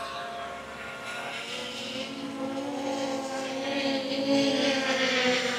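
DJI Mini 3's propellers whining as the small quadcopter descends to land close by. The hum grows louder and bends slightly in pitch as it comes in.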